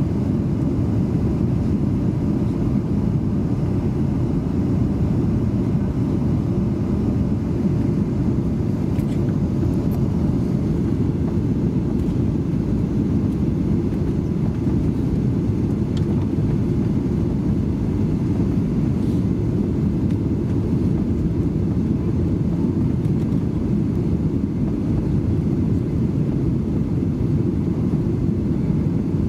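Steady low rumble inside the cabin of a Boeing 737-800 on final approach, from its CFM56-7B26 engines and the airflow past the airframe, at an even level.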